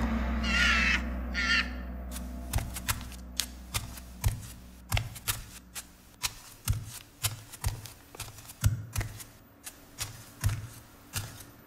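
Sound-design effects for a projected animated creature: a crow-like caw near the start over a low drone that fades out, then a long run of light, irregular clicks and taps, roughly two a second, some with a low thump.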